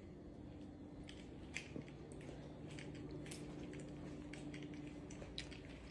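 Quiet indoor room tone: a faint steady hum with scattered soft clicks and taps.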